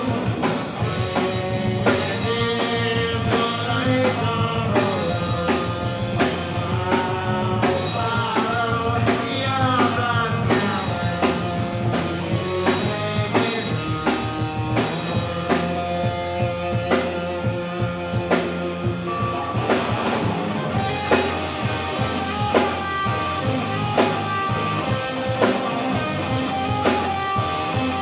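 Live rock band playing amplified through a PA: drum kit, electric guitars, bass and keyboard, with a lead vocalist singing over them.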